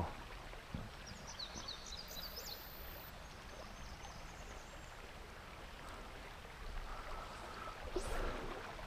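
River current flowing steadily over a rocky bed, with a bird giving a short run of high chirps about a second and a half in.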